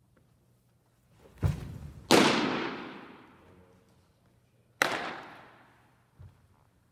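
A baseball pitch: a thud about a second and a half in as the pitcher throws, then a loud pop of the ball into the catcher's mitt, ringing on through the echo of a gym hall. About three seconds later a second sharp pop, with its own echo, as the return throw is caught in a glove.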